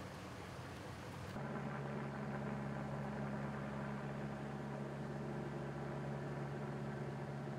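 Water from a broken water main rushing across a flooded street. After a cut about a second and a half in, an engine idling with a steady low hum.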